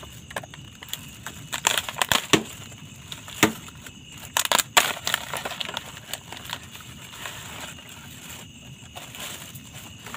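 Crunching and crackling as frozen side dishes straight from the freezer are handled, with irregular sharp cracks that are thickest in the first five seconds and thin out after that.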